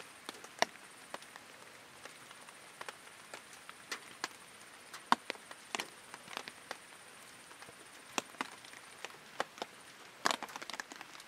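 Irregular, scattered taps of water drops falling onto a taut camp tarp, with a quicker run of taps about ten seconds in.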